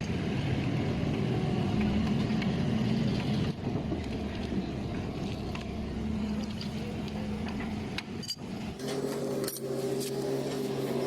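A motor running steadily with a low hum, broken by short dips. About nine seconds in it gives way to music with a low droning tone.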